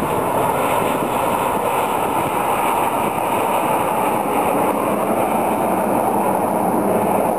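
Steady jet-engine noise from a formation of Snowbirds CT-114 Tutor jets flying overhead.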